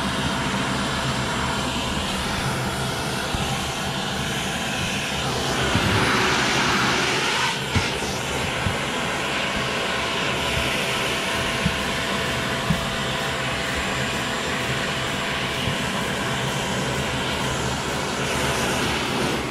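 A motor runs steadily with a droning hum, swelling briefly about six seconds in, with a few sharp clicks. Under it, a rubber pet-hair brush is dragged over cloth seat upholstery to lift dog hair.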